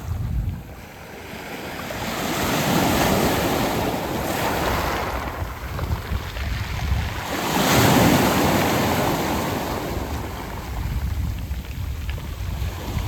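Sea waves washing in and out over a round-pebble beach, swelling to two big surges about three and eight seconds in. Wind buffets the microphone with a low rumble underneath.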